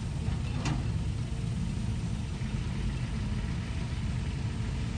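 Heavy vehicle engine running with a steady low rumble, with one brief sharp click under a second in.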